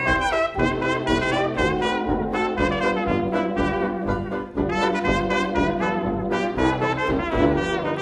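Hot jazz dance band in 1920s style playing an instrumental passage. Trumpets and trombones carry the tune in short, punchy chords over a steady beat.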